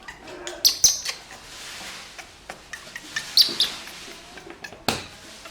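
Baby monkey giving short high squeaks a few times, the loudest about a second in and at about three and a half seconds, among small clicks and handling knocks, with one sharp knock near the end.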